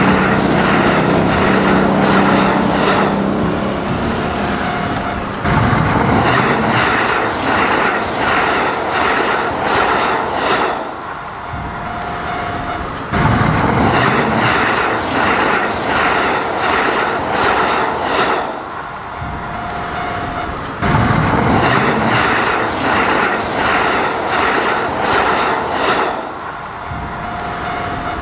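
Electric train running on the rails, wheels clacking rhythmically over rail joints. Its loudness rises and falls in a repeating cycle of about eight seconds.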